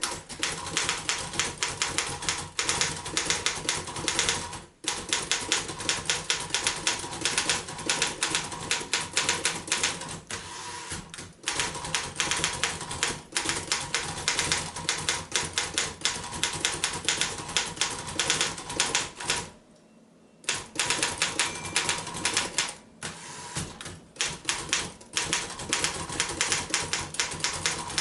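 1939 Royal KMM manual typewriter being typed on fast: a dense run of sharp key and typebar strikes, broken by a few brief gaps and one pause of about a second two-thirds of the way through.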